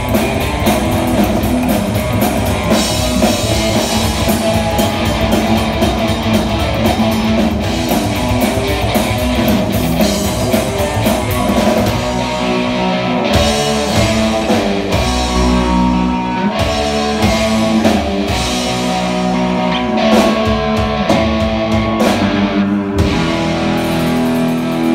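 Live band playing an instrumental passage of a rockin' song on upright double bass, electric guitars and drum kit. About halfway through, the full, busy playing thins out into short stop-start hits, and near the end it settles on a held chord.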